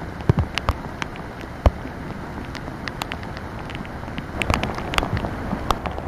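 Heavy rain falling as a steady hiss, with drops striking close to the microphone as irregular sharp taps that come more often in the second half.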